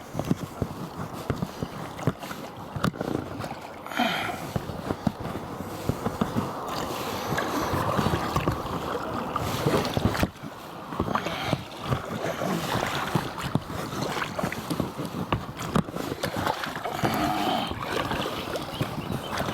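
Oars dipping and splashing as a small rowing boat is rowed, with water noise and irregular short knocks.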